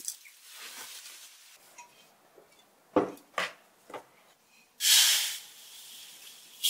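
A few light knocks, then candle wax pellets poured from a pot into a stainless-steel bowl: a short, loud rattling rush of pellets on metal about five seconds in.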